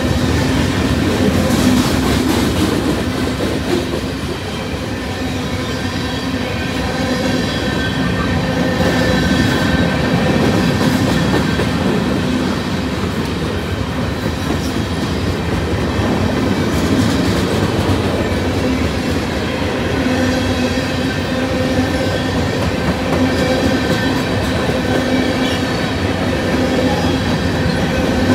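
Freight train rolling past at close range: the cars' steel wheels rumble and clatter on the rails, with a few steady whining tones from the wheels over the rumble.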